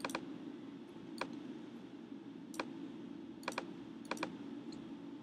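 About seven faint, sharp clicks at a computer, scattered and some in quick pairs, over a faint steady hum.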